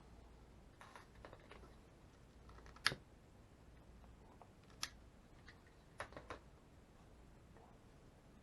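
Faint, scattered clicks and taps of small items being handled, the sharpest about three, five and six seconds in.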